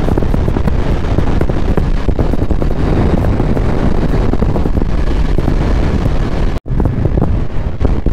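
Heavy wind buffeting the microphone of a motorcycle rider at speed, a loud dense low rush with the bike's road and engine noise buried in it. The sound cuts out for an instant about six and a half seconds in.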